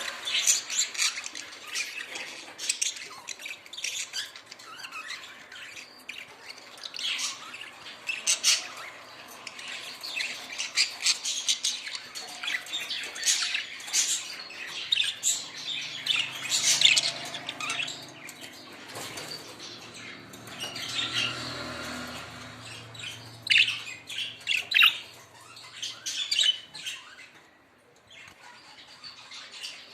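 Budgerigars chirping and squawking in a busy, continuous chatter of short high calls, quieting briefly near the end.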